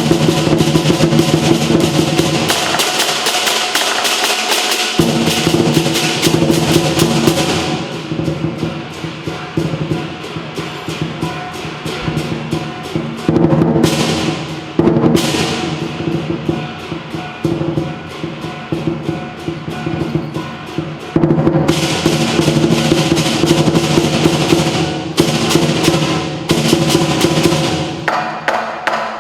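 Lion dance percussion: a large drum beaten in fast rolls under clashing cymbals and a ringing gong. The cymbals come in loud stretches, with quieter drum-led passages between, and the playing stops just before the end.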